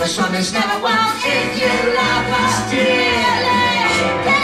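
Musical theatre song: voices singing over a band accompaniment.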